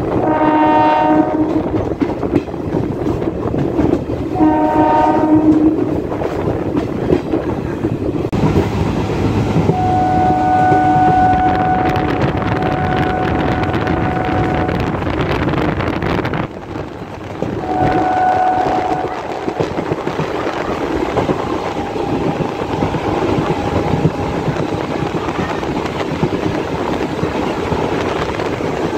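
Diesel electric multiple unit (DEMU) train running at speed, heard from an open door: a steady rumble with wheel clatter throughout, and two short horn blasts in the first few seconds. A thinner steady tone comes and goes later on.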